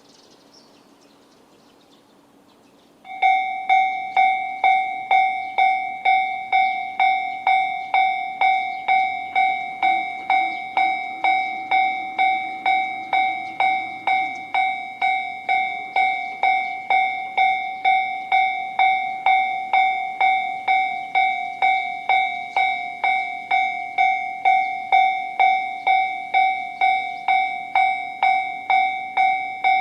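Japanese railway level crossing alarm sounding the JR standard electronic bell. It starts suddenly about three seconds in and rings evenly at about two strikes a second, each strike a bright ding that decays. The alarm signals that a train is approaching.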